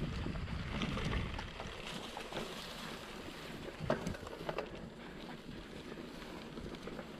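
Wind buffeting the microphone over the rumble of a mountain bike rolling along a trail, with scattered rattles and knocks; the sharpest knock comes about four seconds in.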